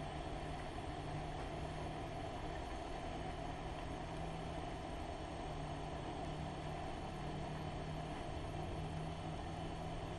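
Steady low mechanical hum, as of a distant motor, unchanging throughout with no sudden sounds.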